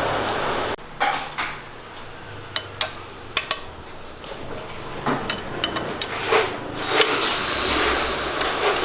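Hand tools clinking and knocking against metal in scattered sharp clicks while a light car's automatic transmission is unbolted to reach its oil filter.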